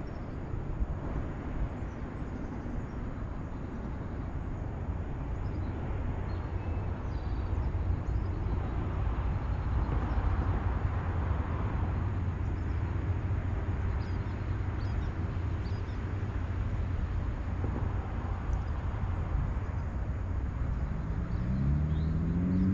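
Steady low rumble of wind buffeting the microphone. Near the end a motor's drone comes in, rising in pitch.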